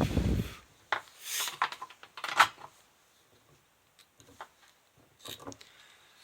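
Bench handling noises while soldering a small circuit board: a dull thud, then scattered clicks, short rubbing and scraping noises and a sharp knock about two and a half seconds in, as tools and the board are handled.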